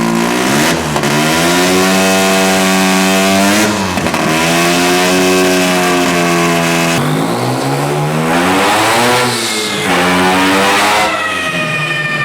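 Single-rotor Mazda rotary engine revving, climbing in pitch and holding for a couple of seconds before dropping back, about four times over.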